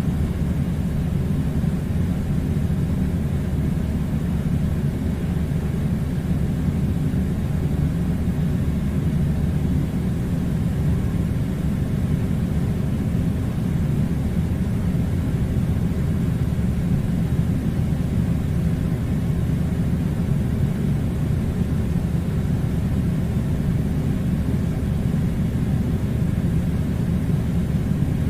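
Air conditioner running: a steady low rumbling hum and rush of air that does not change.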